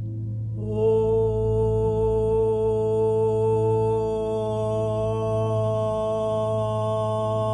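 A woman's voice toning one long, steady vowel for the solar plexus chakra over a low steady drone. The tone starts about half a second in and is held at one pitch.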